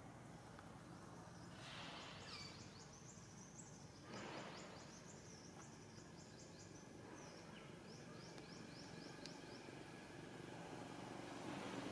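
Faint outdoor ambience with a small bird chirping quickly and high, in runs from about two seconds in and again from about seven seconds in. Two short rustles come at about two and four seconds in.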